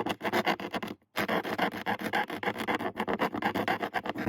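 Hand file rasping quickly back and forth on the edge of a lock hole in an RV compartment door, rounding off its flat sides, about eight strokes a second with a short pause about a second in.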